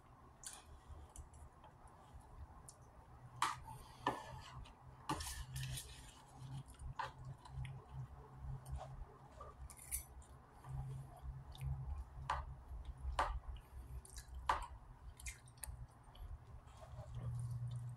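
A fork clicking and scraping against a food container at irregular intervals, with chewing in between.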